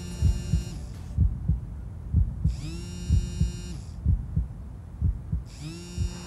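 A mobile phone ringing: an electronic ring tone about a second long, sounding three times, each ring with a short rising start. Under it, a heartbeat sound effect of low thumps in pairs, about one beat a second.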